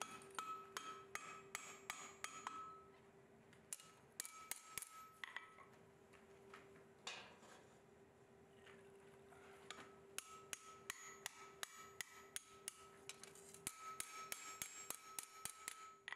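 Hand hammer striking a hot steel bar ring over the anvil horn in runs of light blows, about three a second, with a faint ringing tone during each run. The blows bend the ring so its ends come together for welding.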